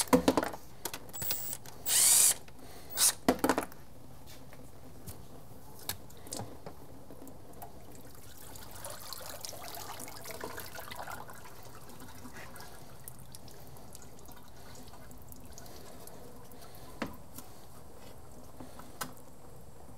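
A cordless drill runs in three short bursts in the first few seconds, spinning out the last transmission pan bolts. Then automatic transmission fluid trickles and drips from the lowered 47RE pan and the transmission into a drain pan.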